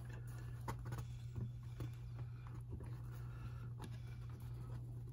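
Faint, scattered clicks and scrapes of hands handling the plastic missiles and pegs of a Cobra FANG toy helicopter, over a steady low hum.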